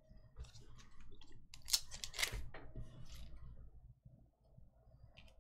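Foil wrapper of a hockey card pack crinkling as it is handled and torn open by hand: a run of short crackles and rips, loudest about two seconds in.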